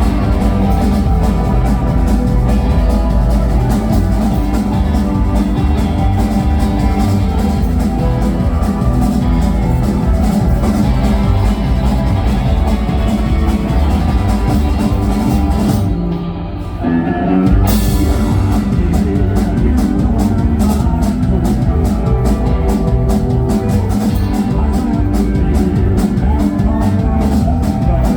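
Live country-rock band playing an instrumental passage on drum kit and guitars. About sixteen seconds in, the cymbals and bass drop out for a second or so, then the full band comes back in on a steady beat.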